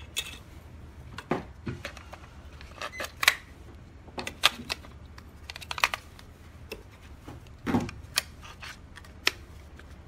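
Sharp plastic clicks and knocks as AA batteries are fitted into a toy radio-control transmitter's battery compartment and the plastic case is handled, a scattered series of separate clicks with a few louder clacks.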